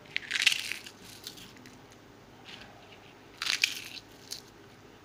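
Crisp fried fuchka shells crunching as they are crushed by hand. Two main bursts of crunching, about half a second in and about three and a half seconds in, with a few lighter crackles between.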